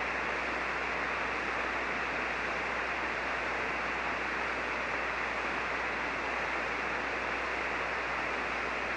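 Steady hiss of band noise from a ham radio receiver on 40-metre single sideband, with no station transmitting. The noise is strongest through the voice range and does not change.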